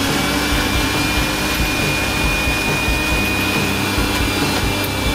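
Electric mixer grinder running at speed, its blades grinding soaked chana dal, onion and green chillies into a paste: a steady motor whine over the churning of the jar.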